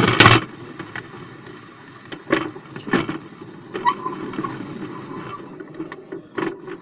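Plastic toys being handled: a quick burst of clattering right at the start, then scattered single knocks over a faint low hum.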